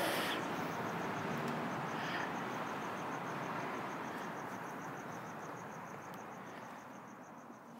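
A cricket chirping in a fast, even rhythm of high pulses over a steady background hiss, all of it fading out near the end.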